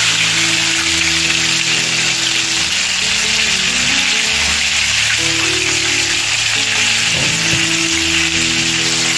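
Hot oil sizzling steadily around chicken drumsticks deep-frying in a pan. Background music with held low notes plays underneath.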